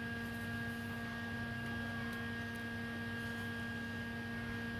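Steady background hum made of several constant tones, unchanging throughout.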